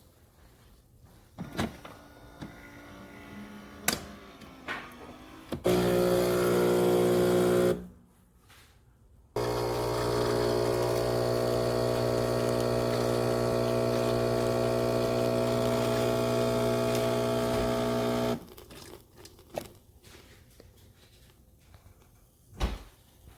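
Philips 4300 Series fully automatic espresso machine running. A steady motor hum lasts about two seconds, then after a brief pause a longer steady hum with a rushing edge runs for about nine seconds, with a few sharp clicks before and after.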